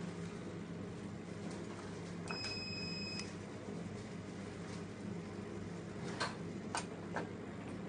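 Fractional laser machine's steady hum, with a single beep of about a second, two pitches at once, sounding while the laser fires onto a test card. A few short clicks come near the end.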